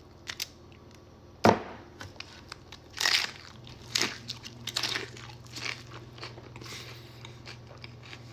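Close-miked eating: a loud bite about a second and a half in, followed by irregular chewing with crunchy smacks and clicks.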